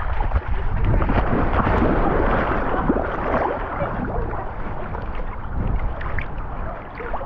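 Water splashing and sloshing close up as a golden retriever puppy wades in and swims, heard from a camera strapped to its back, loudest in the first few seconds and then settling into steadier swimming sloshes, over a low wind rumble on the microphone.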